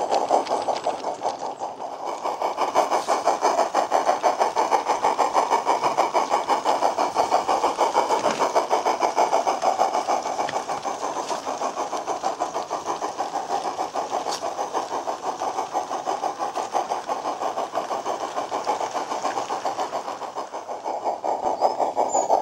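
Model steam-locomotive chuffs played by a MyLocoSound sound card in a battery-powered garden-railway Kerr Stuart loco, a quick steady beat timed by the chuff cam on its Bachmann motor block. The train runs steadily, the chuffing dipping briefly about two seconds in and again near the end.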